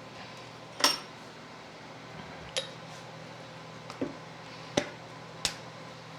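Metal parts clinking against each other or a hard bench five times, the first the loudest, each with a short ring, over a faint steady low hum.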